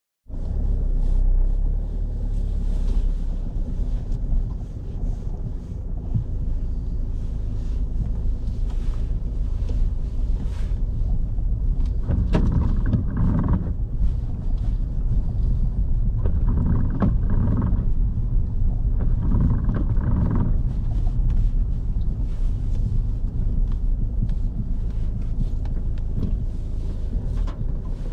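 Car driving slowly, heard from inside the cabin as a steady low rumble of engine and tyre noise, with scattered light clicks. Three short bursts of louder, higher noise come near the middle.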